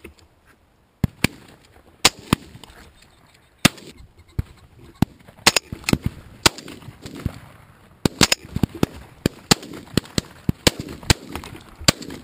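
Shotgun fire from a line of several shooters: many sharp shots in quick, irregular succession, some close and loud, others fainter and farther off.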